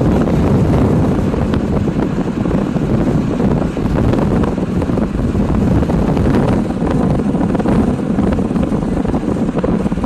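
Strong sea wind buffeting the microphone: a loud, steady low rushing rumble that rises and falls slightly, with no pauses.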